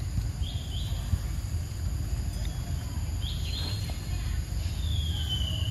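Outdoor ambience: a steady low rumble, like wind on the microphone, with short high animal chirps, mostly two in quick succession, and one longer call falling in pitch near the end.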